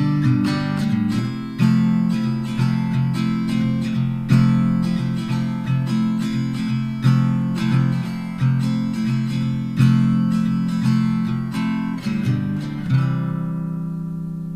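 Background music: acoustic guitar strumming chords in a steady rhythm, with a last chord left ringing and fading about 13 seconds in.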